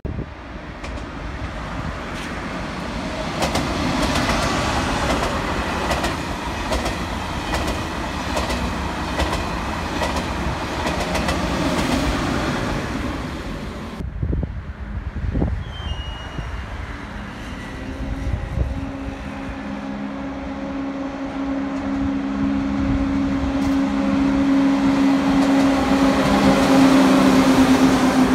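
Eurostar Class 373 high-speed train running slowly past, its steady low electric hum growing louder as it nears. Before that comes a rumble of rolling wheels with many sharp clicks.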